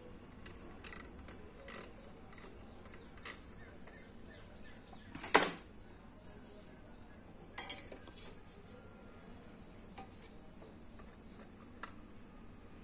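A few small clicks and taps of circuit boards and a soldering iron being handled and set down on a workbench mat, with one sharper knock about five seconds in, over a quiet steady hum.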